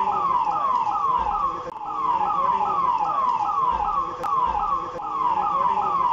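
Police vehicle siren sounding in a fast repeating cycle, each note sweeping down in pitch and snapping back up, about two and a half times a second.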